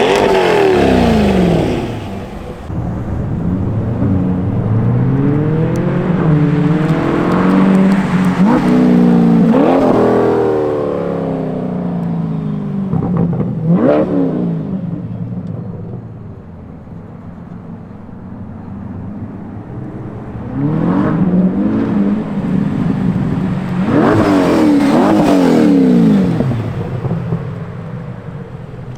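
2020 C8 Corvette's 6.2-litre LT2 V8 revving through an aftermarket-modified or stock exhaust: repeated climbs in engine speed that fall back toward idle, with one sharp short blip near the middle, a quieter lull, and two more revs near the end.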